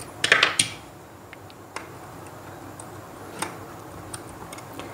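Small sharp clicks and taps from hands working a wire and a screwdriver at a plastic two-way switch's screw terminals: a quick cluster of clicks within the first second, then single clicks every second or so.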